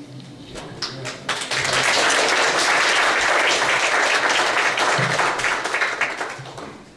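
Audience applause: a few scattered claps, then full clapping from about a second in that dies away near the end.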